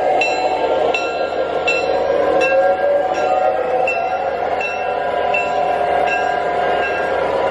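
MTH Mark Twain Zephyr O gauge model train running along three-rail track, its Proto-Sound 2.0 playing a steady running sound with a bell dinging about every three-quarters of a second.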